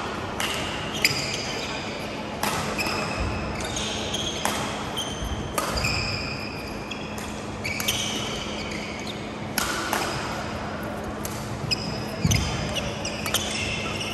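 A badminton doubles rally: sharp racket strikes on the shuttlecock every second or two, with court shoes squeaking in short high chirps on the court mat, in a large echoing hall.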